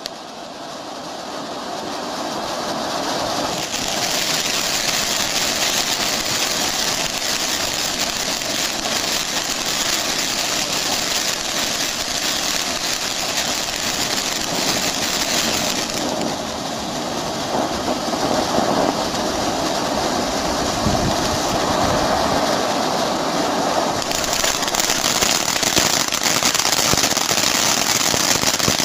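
Fan-shaped ground fountain firework spraying sparks with a steady, loud hiss. The hiss thins and drops lower about 16 seconds in, then turns bright and full again about 24 seconds in, as the fountain changes stages.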